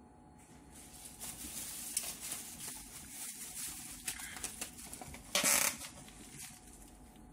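Clear plastic bag wrapped around a sewing machine crinkling and rustling as hands grip and tug at it, with one louder crinkle about five and a half seconds in.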